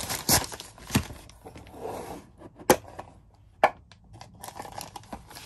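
Thin plastic bag rustling as it is pulled off a hard plastic stove case, then sharp clicks as the case's snap lid is opened. The two loudest clicks come about a second apart near the middle.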